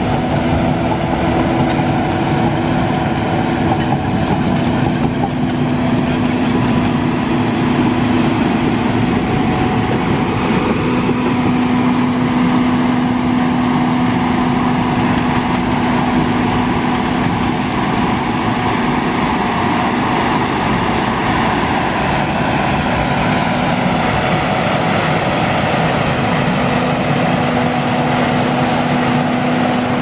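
John Deere 850K crawler dozer's diesel engine running steadily under load while the blade pushes sand and dirt, with the steel tracks clattering.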